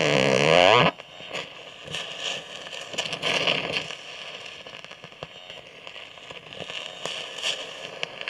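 Carbon arc from a graphite gouging rod on a welder, run on negative polarity, crackling and sputtering as it melts rock. It opens with a loud, wavering buzz that cuts off about a second in, followed by irregular crackling with louder hissing flare-ups.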